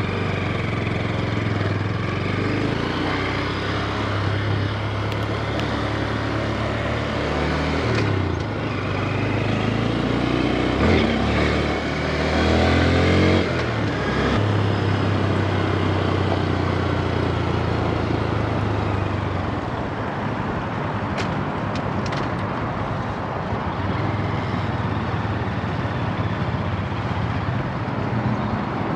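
Honda Grom motorcycle's small single-cylinder engine running on the move, its pitch rising and falling and growing louder around the middle as it revs, with rushing noise over it.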